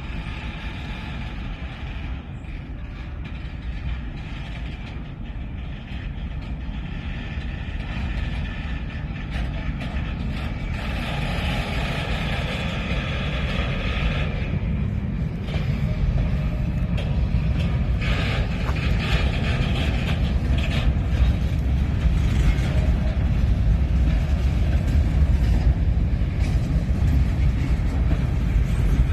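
Freight train of covered hopper cars rolling slowly past on the rails, shoved from behind by a steam locomotive. A low rumble grows louder as the cars come close, with a high squeal from the wheels on the curve through roughly the first half.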